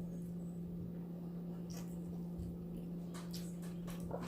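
Faint wet mouth clicks and chewing of someone eating: a few small clicks about two seconds in and a cluster of them near the end, over a steady low hum.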